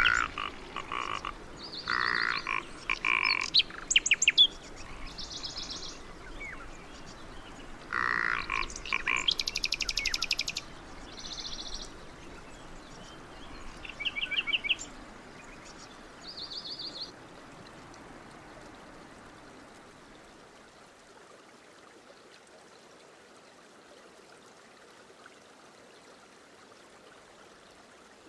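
Animal calls: short bursts of rapid, pulsed trilling calls, several in the first half, then dying away to a faint steady background.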